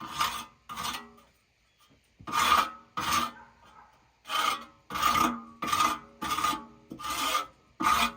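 Steel wire brush scrubbing hard maple bark in short strokes, with a brief pause near the start, then strokes about one and a half a second. The bark is being cleaned of dirt so that the dirt does not dull the sawmill's band blade.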